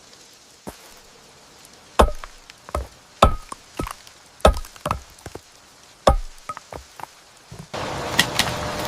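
Chopping: a series of sharp knocks at irregular intervals, some with a brief ring. Near the end a steady rushing noise with a faint hum cuts in abruptly.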